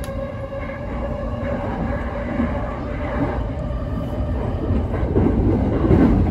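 Electric commuter train running on the track, heard from inside the front car: a steady rumble of wheels on rail with a faint steady hum, growing louder about five seconds in.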